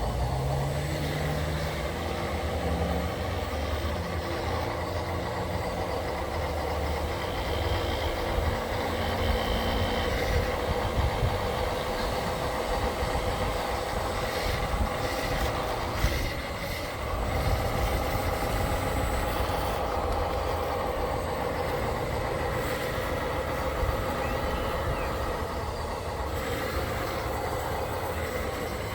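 Radio-controlled construction machines running: a steady whine from their motors and hydraulics over a low rumble, with a few sharp ticks. The whine drops briefly just after the middle and comes back slightly changed in pitch.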